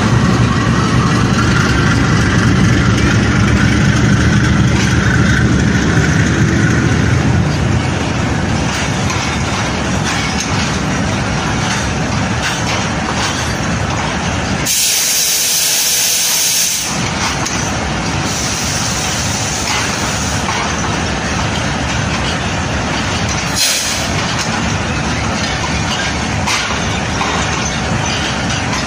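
Diesel-electric locomotive running close by with its engine rumbling for the first several seconds, followed by passenger coaches rolling past with steady wheel-on-rail noise. About halfway through comes a loud hiss of air lasting about two seconds, and a brief hiss again later.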